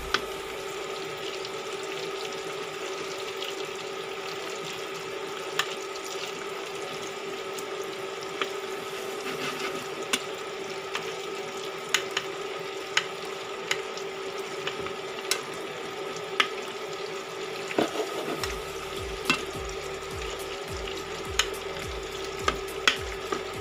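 Salmon steaks and onions sizzling in sauce in a frying pan, with a metal spoon clinking against the pan every second or so as the sauce is spooned over. A steady hum runs underneath.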